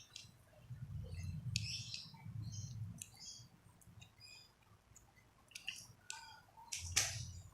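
Slime being worked out of a small plastic tub: scattered short squeaks and clicks over low handling rumble, with a sharper click about seven seconds in.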